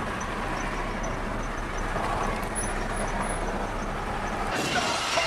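Steady vehicle noise heard from inside a car's cabin in traffic, with no voices; the noise changes and grows hissier about four and a half seconds in.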